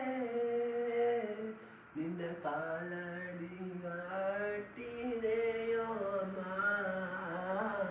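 A young man singing a slow Baduga song solo and unaccompanied, holding long, wavering notes, with brief breath pauses about two seconds in and again near five seconds.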